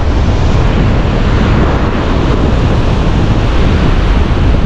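Wind buffeting the microphone in a steady low rumble, over the hiss of ocean surf breaking on the beach.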